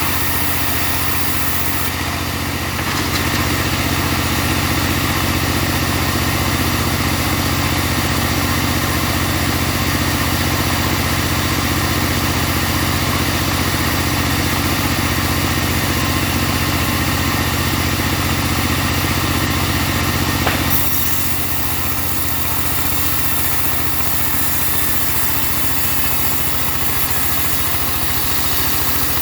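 Engine-driven portable bandsaw sawmill running steadily while splitting a log. The noise rises and fills out a few seconds in, then drops back to a lighter running sound about two-thirds of the way through.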